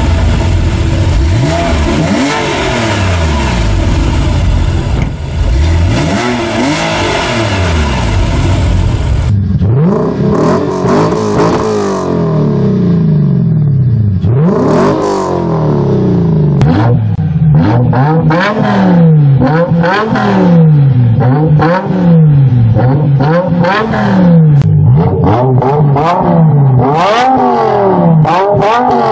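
Sports-car exhausts revving in turn: first a Porsche 997's flat-six, its pitch sweeping up and down. About nine seconds in it switches to a Lexus IS-F's V8, then to quick, sharp rev blips about once a second.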